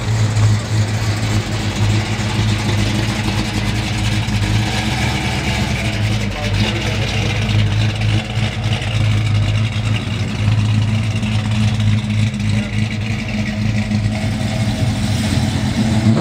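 Classic cars' engines idling and pulling slowly away, a steady low engine rumble with light revving.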